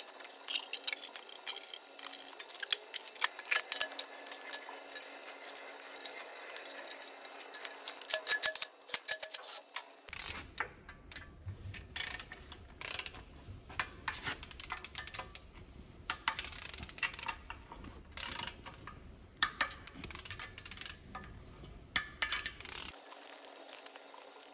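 Metal parts and hand tools clinking and tapping in irregular sharp clicks while an intake manifold is fitted and bolted to a truck diesel's cylinder head. A low background hum joins about ten seconds in and drops out near the end.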